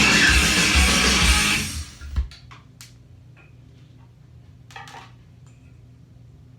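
Loud rock music with electric guitar, which cuts out about two seconds in with a thump. After it come a faint low hum and a few scattered soft clicks.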